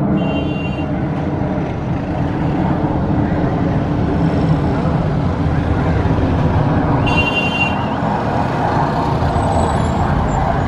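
Steady rumble of a formation of BAE Hawk jet trainers flying overhead. A brief high, horn-like tone sounds at the start and again about seven seconds in.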